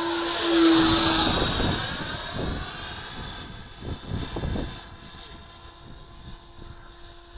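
Electric ducted fan of a 105 mm RC J-10 jet running on an 8S motor, whining loudly as it makes a low pass: the sound swells to a peak about a second in, sweeps in pitch as the jet goes by, then fades as it flies away.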